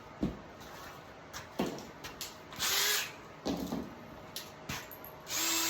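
Power drill run briefly, then started again near the end and kept running steadily, for drilling small holes in a steel barrel, with a few handling knocks in between.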